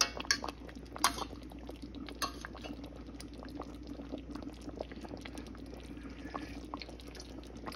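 A metal spoon clinks against a steel pot a few times in the first couple of seconds as stew is scooped out. Then the thick tomato-sauce stew simmers with small popping bubbles over a steady low hum.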